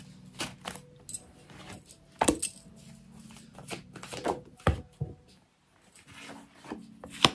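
Deck of tarot cards shuffled by hand: irregular clicks, taps and riffles of the cards against each other, with sharper snaps about two seconds in, near the middle and near the end.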